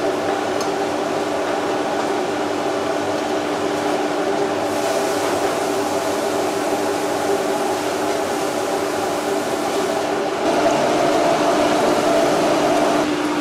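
Steady mechanical hum of restaurant kitchen equipment, a drone with a low held tone under it. The mix shifts slightly twice, about four and a half and ten and a half seconds in.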